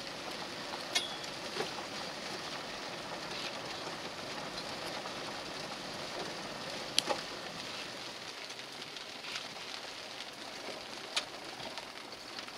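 Steady hiss of rain on a Jeep's windshield and body, heard from inside the cab while it rolls along a wet gravel road, with a few sharp ticks.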